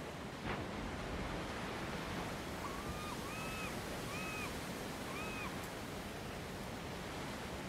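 Sea surf washing steadily against rocks, with four short arched calls of a bird partway through.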